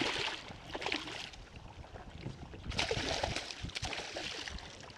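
Hooked smallmouth bass thrashing at the water's surface, in two bursts of splashing: one at the start and another about three seconds in.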